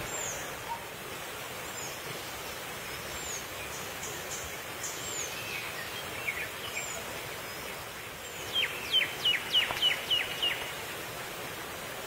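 Wild bird calls over a steady outdoor hiss: faint, high, short falling chirps here and there, then about two-thirds in a quick run of about seven loud, sharp notes, each sliding steeply down in pitch.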